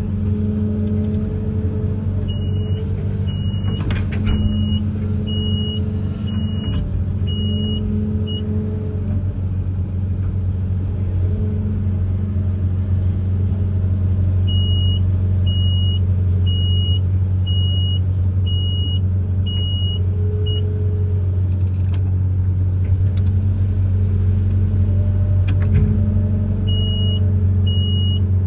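Amphibious excavator's diesel engine running steadily with a deep drone. Runs of short high electronic beeps, about two a second, come in three bursts of several seconds, from a warning beeper.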